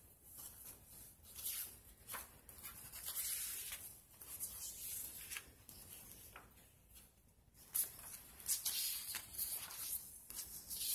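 Sheets of paper and cardstock rustling and sliding against one another as they are handled, in irregular swishes with a short lull a little past the middle.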